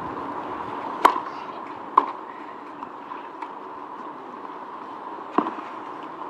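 Tennis ball struck by rackets during a point on a clay court: a sharp pop about a second in, another a second later, a few fainter taps, then another sharp pop near the end, over low steady background noise.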